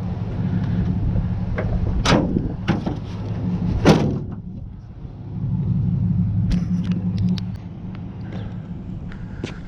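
A steady low mechanical hum with several sharp knocks and clanks over it, the loudest about two and four seconds in.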